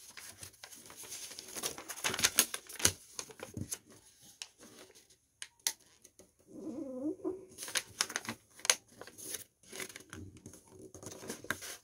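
Origami paper rustling and crinkling in irregular clicks and crackles as a folded sheet is opened out and refolded by hand on a wooden table. A brief pitched sound, rising and falling, comes about seven seconds in.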